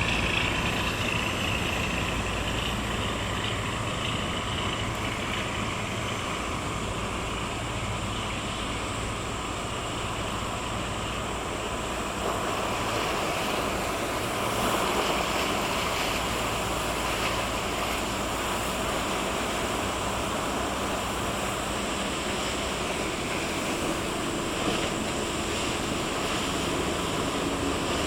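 Small work boat's diesel engine running steadily as it passes, with the wash of water and some wind on the microphone.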